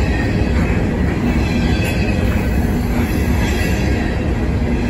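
Empty covered hopper cars of a freight train rolling past close by: a steady, loud noise of steel wheels running on the rails.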